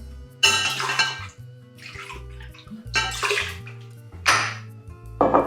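Shots of gin poured into a container with the cocktail mix in a few short splashing pours, with clinks of glass or utensils.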